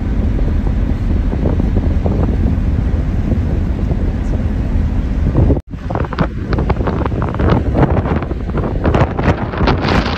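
Wind blasting across a phone microphone on the open deck of a moving ferry, a dense low rumble throughout. The sound drops out for an instant a little past halfway, then returns in gustier buffets.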